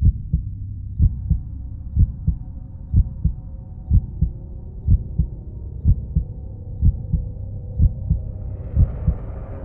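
Heartbeat sound effect: a slow double thump about once a second over a low, steady drone, with a soft hiss coming in near the end.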